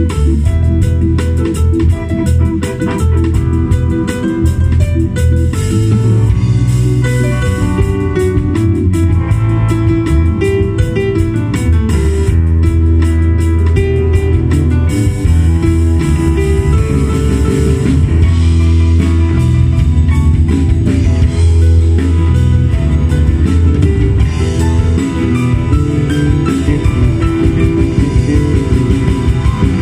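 A live band playing: electric guitar, electric bass guitar and drum kit, with a Roland VK-8 organ keyboard.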